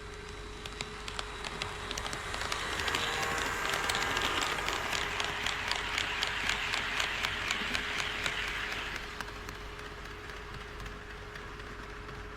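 HO-scale model train running past on KATO Unitrack, its wheels clicking in quick succession over the rail joints. It grows louder for a few seconds, then fades away about nine seconds in.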